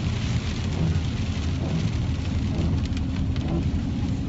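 Heavy rain beating on a moving car, a steady hiss with scattered drop ticks, over a steady low rumble of road and engine noise.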